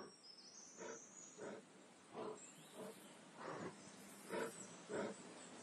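A bear grunting rhythmically: about seven short, breathy grunts, a little under a second apart.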